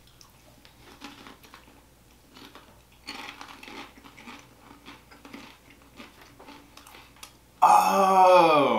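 Faint crunching and chewing of Walkers Wotsits-flavoured crisps. Near the end a voice comes in loudly, falling in pitch.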